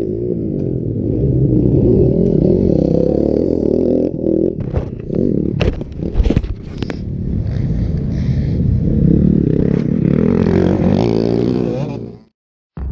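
Motocross motorcycle engines running and revving, with scraping and knocks from the camera being handled in the middle. The sound cuts off suddenly just before the end.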